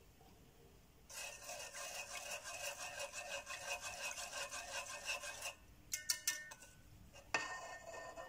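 Evaporated milk pouring from a can into a pot of coconut-milk mixture: a steady stream from about a second in, lasting some four seconds. A few light clinks follow, then a second, shorter pour near the end.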